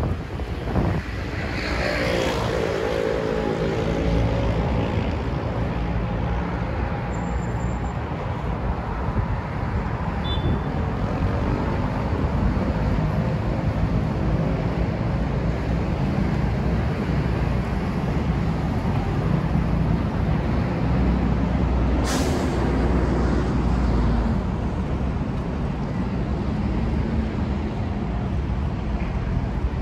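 Steady traffic on a busy multi-lane city road: engines and tyres of passing cars and buses with a continuous low rumble. In the first few seconds one vehicle's engine tone bends up and down as it passes, and about 22 seconds in there is one short, sharp sound.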